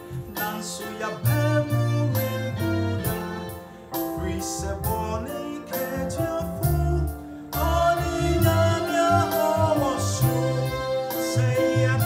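A man singing a gospel song in Twi over keyboard accompaniment with bass notes and a steady beat; his voice swells loudest about two-thirds of the way through, then slides down in pitch.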